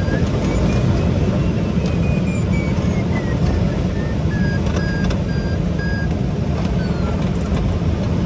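Steady rush of airflow around the cockpit fairing of a Swift flying-wing glider in flight. Over it, a variometer beeps in short pips whose pitch rises, then falls and settles lower, the sign of flying through lift.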